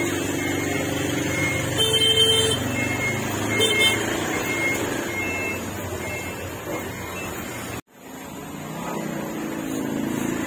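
Road traffic running past, with a vehicle horn honking for about half a second around two seconds in and a shorter toot near four seconds. The sound cuts out abruptly for a moment near the end.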